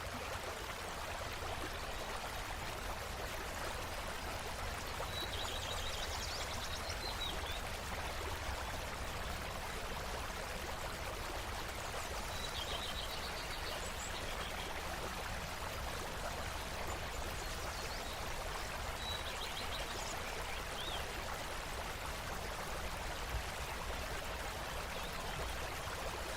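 A small stream running steadily, with a songbird singing the same short, high trilled phrase three times, about seven seconds apart.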